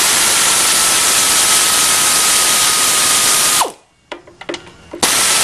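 Power tool running as bolts are removed to take an engine apart: a loud steady hiss with a thin whine, which drops as the tool spins down about three and a half seconds in. A few clicks follow, and the tool starts again near the end.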